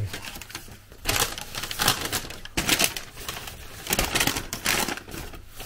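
Takeaway food packaging rustling and crinkling as it is handled and opened, in about five short bursts.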